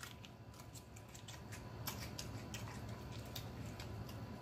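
Faint close-up chewing of a mouthful of food, with scattered small crisp clicks and crunches.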